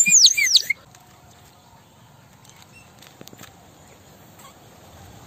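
Water-filled bird-shaped whistle blown into a high warbling trill with quick repeated dips in pitch, cutting off abruptly under a second in.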